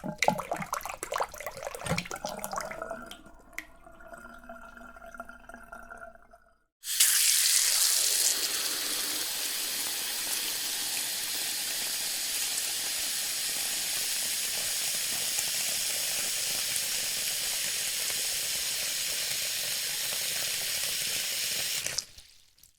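Rain sound effects: irregular drips and patter with a few ringing tones, then an abrupt switch about seven seconds in to steady, heavy rain hiss that runs for about fifteen seconds and cuts off suddenly near the end.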